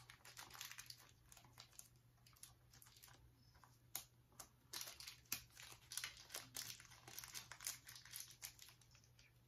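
Small clear plastic bag crinkling and crackling in the hands as it is opened to get a small pin badge out, in irregular faint crackles that get denser and louder about halfway through.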